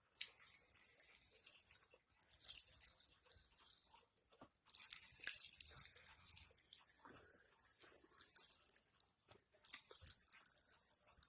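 Pop Rocks popping candy crackling and fizzing in the mouth, in four spells of dense, high crackle, each lasting a second or two.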